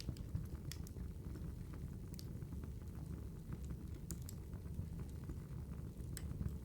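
Wood fire crackling: a steady low rumble with irregular sharp pops and snaps, several of them louder, about a second in, a little after two seconds, past four seconds and past six seconds.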